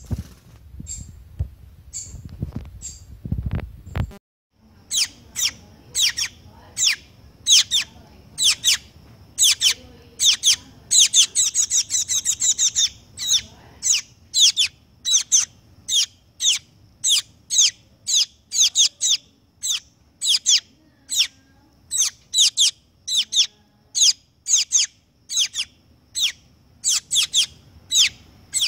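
Fledgling shiny cowbird giving short, high begging chirps while being hand-fed, each chirp falling in pitch, about one or two a second with a quick run of them near the middle. In the first four seconds there are only low rustling and thumps, with a few faint chirps.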